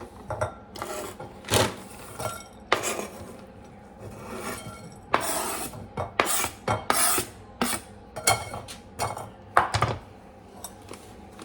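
Knife scraping and tapping across a cutting board, pushing chopped ingredients into a bowl, in a run of irregular short scrapes.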